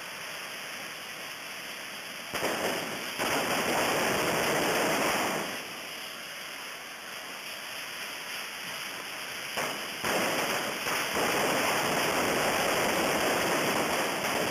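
Dense, continuous hiss of many burning gunpowder rockets (coets) spraying sparks. It swells louder about two seconds in, eases a little around the middle, then grows loud again from about ten seconds in.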